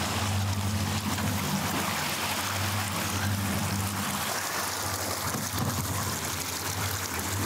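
Water rushing and splashing in the wake at a boat's stern, over the steady low hum of a Mercury outboard motor running.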